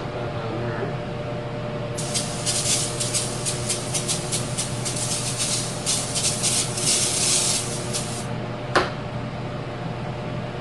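A pressurised spray nozzle hisses in quick pulses for about six seconds while hydraulic cylinder parts are cleaned. A steady machine hum runs underneath, and a sharp click comes at the start and another near the end.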